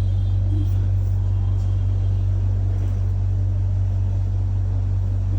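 A steady low-pitched hum at an even level, with a few faint ticks over it.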